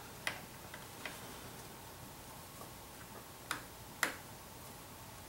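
A few light, sharp clicks of hard plastic and small tools as a laptop's plastic screen casing is worked loose, the two loudest a little after three and a half and four seconds in.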